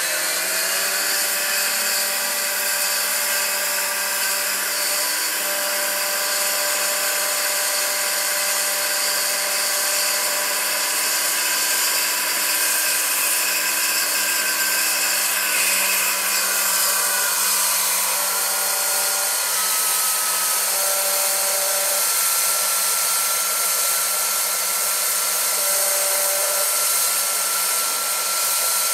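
Large electric scale RC model helicopter (Vario SA-341/342 Gazelle) running its rotor: a steady high-pitched electric whine of several tones over a hiss, finishing its spin-up at the very start. The pitch shifts slightly a few times in the second half as the model lifts off into a low hover.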